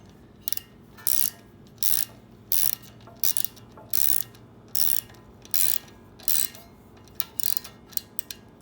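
Ratchet wrench being worked in short strokes to turn bolts: each back-stroke gives a quick burst of clicks, about one and a half a second, with lighter single ticks near the end.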